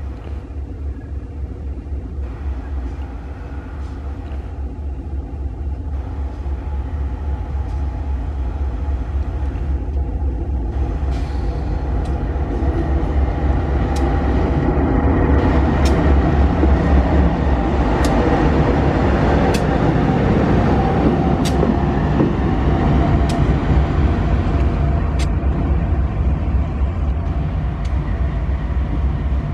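GE AC44i diesel-electric locomotive running light, its engine a deep pulsing rumble that grows louder as it approaches, then holds steady. A few sharp clicks sound through the second half.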